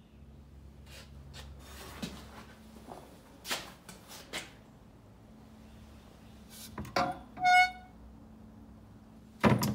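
Scattered light clicks and knocks of metal parts being handled on a workbench, with a brief high squeak about three-quarters of the way through, over a low steady hum.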